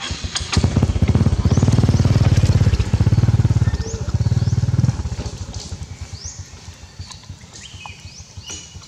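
A small motorcycle engine running close by, loud for about four seconds, then dropping off sharply and fading. Short high rising chirps repeat in the background.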